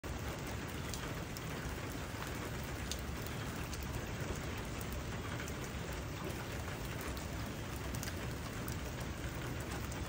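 Steady rain falling on grass and a puddle: an even hiss scattered with many small, sharp drop ticks, over a steady low rumble.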